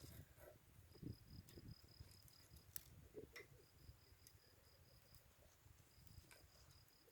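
Faint insect trilling, a high, steady, pulsed note in repeated runs of about a second and a half with short gaps. A few sharp pops from a crackling campfire sound over it.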